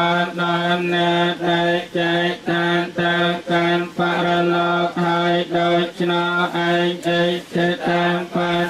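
Theravada Buddhist monks chanting Pali verses, male voices held on one steady low note and broken into even syllables about twice a second.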